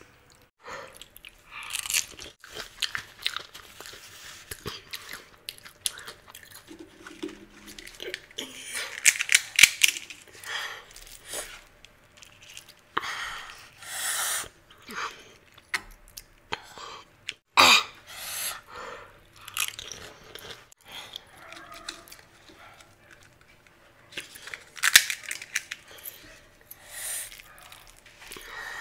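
Pani puri (golgappa) being eaten close to the microphone: crisp fried puri shells cracking and crunching between the teeth, with wet chewing of the water-filled shells. The sounds come in irregular bursts with short pauses between mouthfuls.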